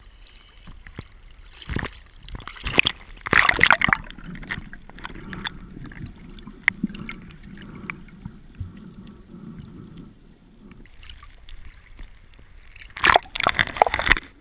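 Seawater sloshing and splashing around a camera at the waterline, with loud splashes a couple of seconds in and again near the end. In between, the camera is under the surface and the sound turns into a muffled, low underwater gurgle.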